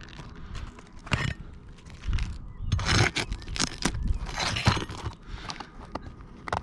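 Brittle old roofing shingles being worked loose by hand: irregular crunching and scraping with sharp clicks, loudest about three seconds in and again near five seconds.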